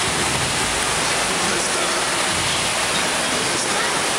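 Steady rushing of water in an indoor water park, with faint crowd voices mixed in.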